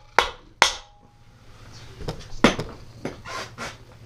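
A hammer strikes the towel-covered end of a Predator 212cc engine's crankshaft to shock the stuck flywheel loose, with two sharp metallic knocks near the start, the second ringing briefly. A few more knocks and clatters follow about two seconds in. The flywheel stays on.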